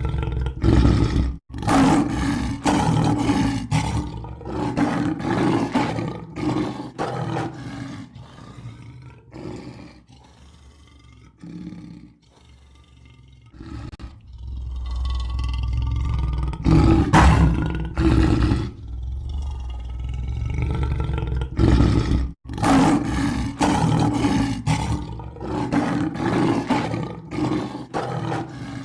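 A lion roaring, with a series of long, deep, throaty calls one after another. The calls die down to a quieter spell in the middle and then build up loud again. Twice the sound cuts out abruptly for an instant, once near the start and once about three-quarters of the way through.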